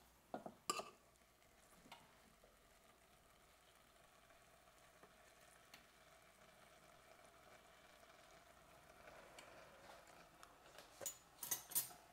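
Faint simmering of a pot of creamed spinach on the hob. A spoon clinks lightly against the cookware a couple of times near the start and again in a short cluster near the end.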